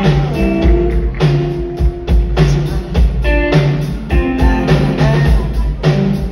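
Live band playing: electric guitar lines with sliding notes over a drum kit and bass keeping a steady beat.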